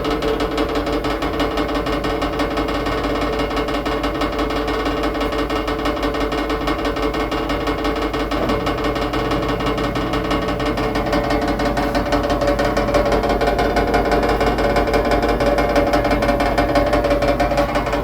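Washing machine in its final spin, running loud with a fast, steady rhythmic knocking rattle. The owner thinks the noise comes from the bottom of the machine. Its tone shifts about halfway through, and it gets louder toward the end.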